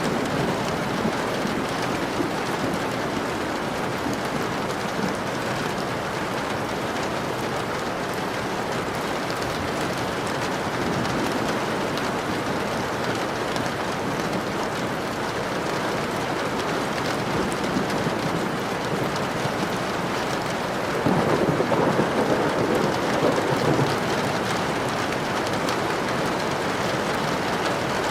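Steady rain falling, with a louder rumble of thunder about three-quarters of the way through that lasts a few seconds.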